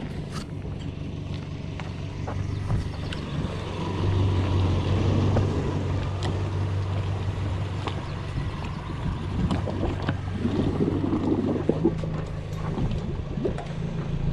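A motor-boat engine running steadily with a low hum, louder from about four seconds in, with a few small knocks over it.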